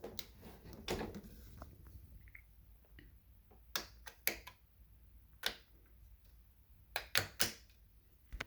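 Scattered clicks and knocks of an Electrolux Discovery II upright vacuum being handled with its motor off, sharpest and loudest about four seconds in and twice in quick succession near the end.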